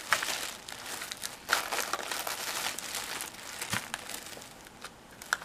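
Tissue paper and small cosmetic packaging crinkling and rustling as hands unwrap and handle a product box: irregular crinkles, busier in the first three seconds and sparser near the end.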